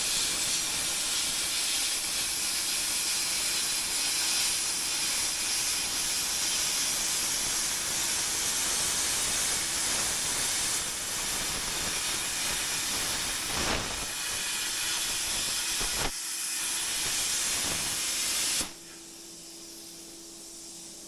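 Steel-cutting torch hissing steadily as it cuts through the wrecker's bed, with a couple of brief breaks near the end. It cuts off suddenly, leaving a steady low hum.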